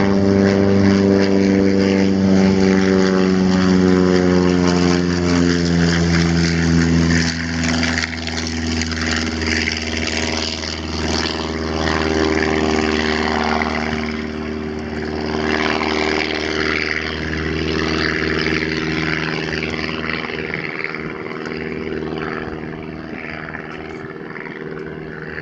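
Lake Buccaneer amphibious plane's piston engine and propeller droning as it flies past, its pitch sliding slowly down. After about seven seconds the sound changes abruptly to a steadier, quieter engine drone with a hiss of wind and water.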